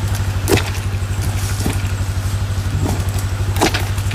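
Steady low mechanical hum with a fast, even pulse, with two short sharp clicks, one about half a second in and one near the end.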